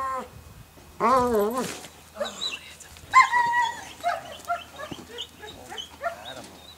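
German Shepherd whining and yipping: two long rising-and-falling cries in the first two seconds, then shorter whimpers and a held whine about three seconds in.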